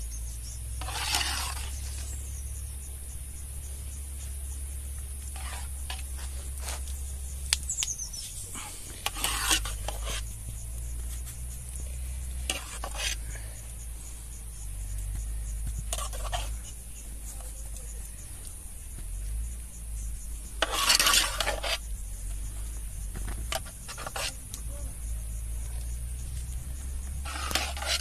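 A metal spoon scraping and scooping cooked rice out of a metal cooking pot, in short scrapes every few seconds. A steady low rumble and a high hiss run underneath.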